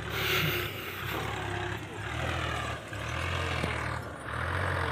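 Tractor's diesel engine running under load as it works a loaded soil trolley through soft dumped earth, its low drone swelling and easing in waves about once a second.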